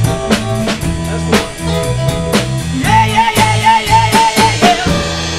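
Live rock band playing: drum kit, electric bass and electric guitars, with a repeated high guitar figure over the beat. The band stops about five seconds in, leaving a held chord ringing.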